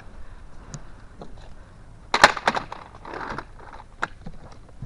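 Plastic bread crates knocking and clattering as they are handled, with a loud clatter about two seconds in and scattered clicks around it.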